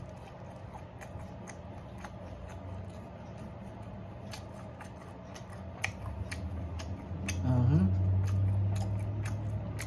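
Close-up eating sounds: a man chewing sesame chicken, with wet mouth clicks and a plastic fork picking at a plastic takeout container, over a steady low hum. About seven and a half seconds in, a short rising tone leads into a louder low hum that lasts a couple of seconds.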